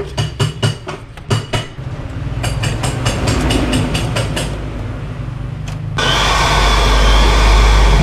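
Sharp, irregular clicks and knocks as a refrigerator evaporator coil is handled and pushed into place in a freezer compartment. About six seconds in, a handheld electric drill starts running loudly.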